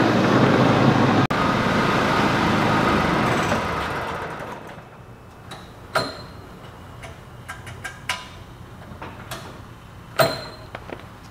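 DR Power Wagon's small gasoline engine running steadily, then dying away about four seconds in; the owner puts its short run down to carburetor trouble. A few sharp knocks follow.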